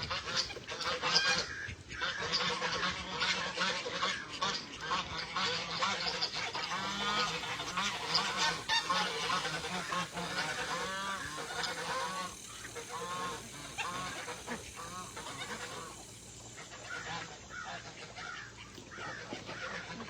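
Domestic geese honking again and again among calling ducks, with a dense patter of short clicks running underneath.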